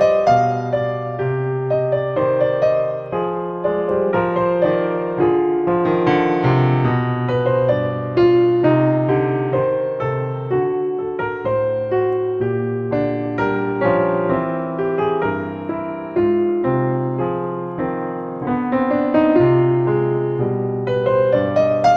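Background piano music: a slow, gentle melody of notes that ring and fade, playing without a break.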